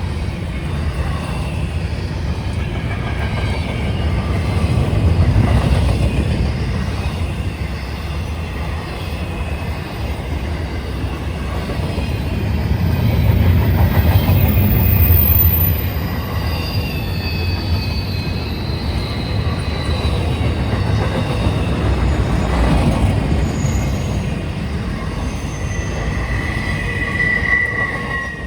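Norfolk Southern freight train rolling past with a steady low rumble that swells and eases, and thin wheel squeals that come and go above it.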